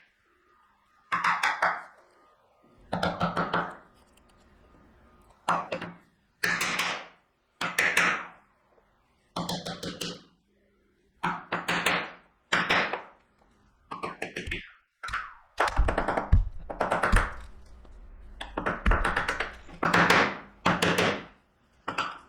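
Mallet driving a chisel into walnut to chop out waste on a dovetail pin board. The strikes come in groups of a few quick taps, about one group every second or two, with heavier blows in the middle stretch.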